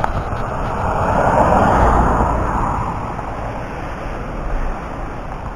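A vehicle passing on the rain-wet road, its tyre hiss swelling and fading over about three seconds, over a steady rushing noise.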